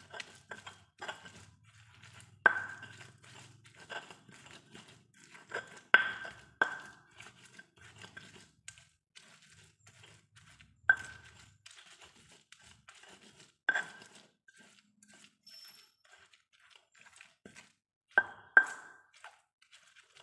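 Stone pestle (ulekan) crushing and grinding fried chillies, tomatoes and shallots in a stone mortar (cobek): irregular squashing and scraping, broken by several sharp stone-on-stone knocks.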